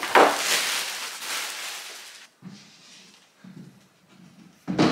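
Rustling and knocking as a heavy boxed mirror is handled: a hissy rustle fading over the first two seconds, a few soft knocks, then a sharp knock near the end.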